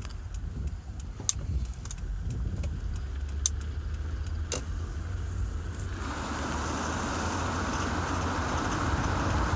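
2005 Honda Accord V6 engine running with sharp ticks about once a second, then its noise grows louder and fuller about six seconds in. The owner traces the tick to the number 6 cylinder and suspects the original timing belt at 201,000 miles.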